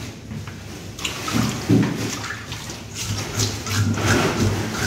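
Fish scaler scraping along the skin of a large fish, in a run of quick, short rasping strokes that flick the scales off, mostly in the second half.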